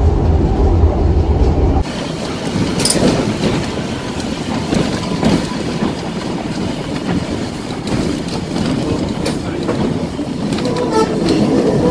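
A 120-year-old open electric tram car running along its track: wheels clattering and clicking over the rails. A deep rumble drops away abruptly about two seconds in, leaving the lighter clatter with scattered clicks.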